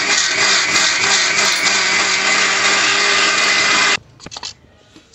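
Electric mixer grinder with a steel jar running at full speed, grinding fried onion, garlic and ginger into a fine paste: a loud, steady motor whine that stops abruptly about four seconds in. A few light clicks and knocks of the jar lid follow.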